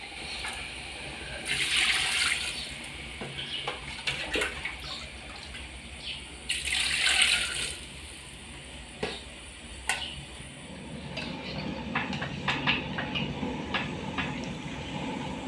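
Water running or pouring in two short bursts, with scattered small clicks and knocks of kitchen utensils later on.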